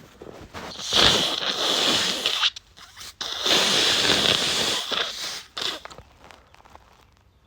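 A man blowing his congested nose hard, twice, each blow a long, noisy rush of air lasting one to two seconds.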